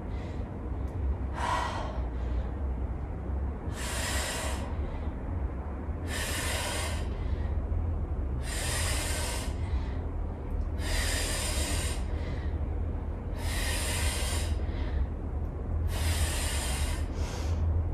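A woman breathing hard through a set of kettlebell deep squats: forceful, hissy exhales about every two and a half seconds, one for each rep, showing the strain of the set.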